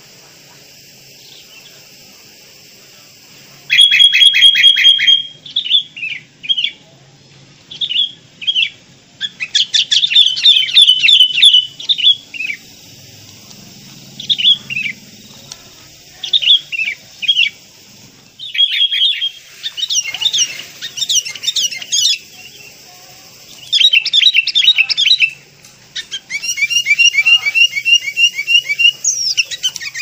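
Sooty-headed bulbul (kutilang) singing. After a few quiet seconds it gives a run of short, bright chattering phrases of rapid repeated notes, in bursts separated by brief pauses.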